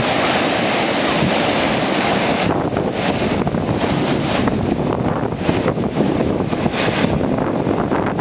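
Sea surf breaking and washing over shoreline rocks: a continuous loud rush of foaming water, hissing brightest for the first two and a half seconds, then easing back with short surges as further waves splash in, with wind buffeting the microphone.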